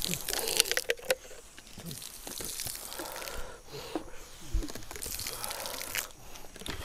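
Water poured from two plastic bottles splashing onto an asphalt road, with sharp clicks and crackles in the first second or so, then quieter patter.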